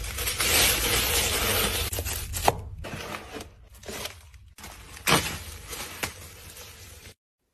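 Thin plastic waste bag rustling and crinkling as it is pulled and fitted over a plastic litter-scoop caddy, followed by quieter handling with a few sharp plastic clicks. The sound cuts off suddenly near the end.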